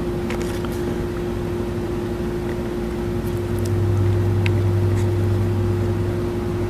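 Steady machine hum with one constant tone and a lower hum that swells from about three seconds in, with a few light clicks of a plastic chainsaw air filter cover and filter being handled.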